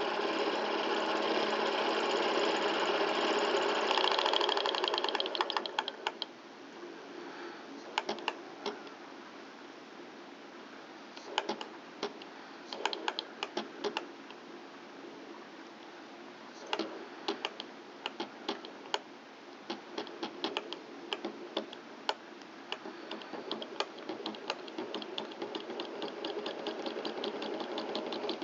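Small glass-piston Stirling engine running fast with a dense, steady mechanical clatter, then, as its throttle valve is screwed closed, dropping suddenly about six seconds in to a much quieter slow run with sparse, irregular ticks. Near the end it picks up speed and grows louder again.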